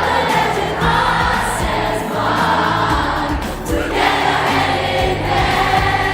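A group of voices singing together over musical accompaniment with a steady bass line.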